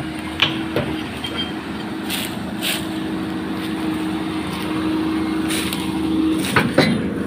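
Tracked excavator's diesel engine running steadily at work, with a steady hum that grows stronger and then stops about six seconds in. Scattered short clunks throughout.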